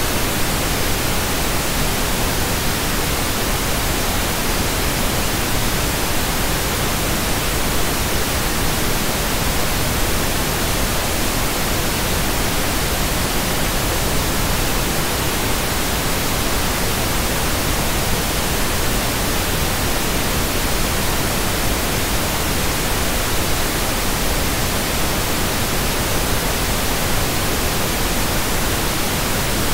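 Steady static hiss, an even wash of noise across low and high pitches that does not change.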